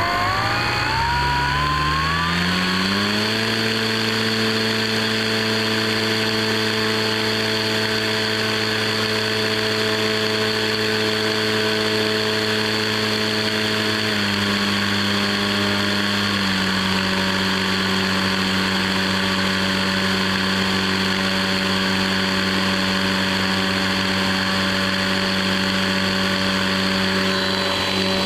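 Skywalker X8's Turnigy G-32 brushless motor and propeller running on the ground, heard muffled from a mic inside the fuselage. The pitch of its hum climbs in steps over the first few seconds and then holds steady. It drops to a lower speed about 14 seconds in and again a couple of seconds later.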